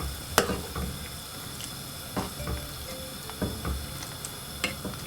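A spoon stirring a pot of boiling vegetables, knocking against the pot a few times over a steady bubbling hiss.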